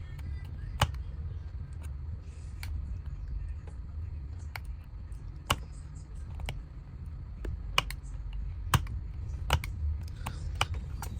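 About a dozen irregular, sharp clicks and taps of hand tools and small parts against the plastic housing of a Soundcore Motion 300 Bluetooth speaker being taken apart, over a steady low hum.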